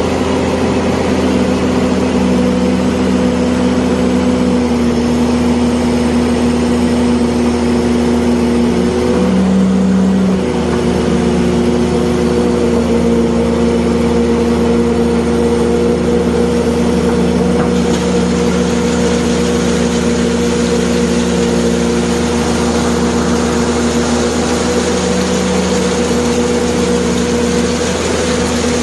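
Excavator running steadily while it works, a constant engine-and-hydraulics hum with a whine whose pitch steps up and down every few seconds.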